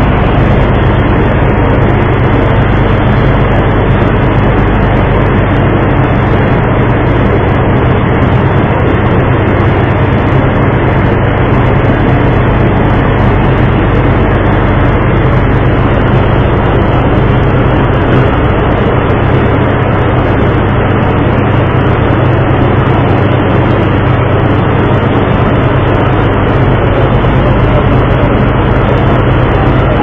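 A loud, steady engine drone with an even rushing noise over it, unchanging throughout.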